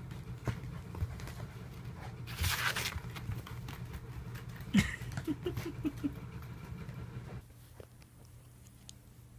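Shiba Inu and kitten scuffling at play: paws pattering and fur rustling, with a sharp knock about five seconds in and a quick run of short squeaky sounds just after. The background drops away quieter near the end.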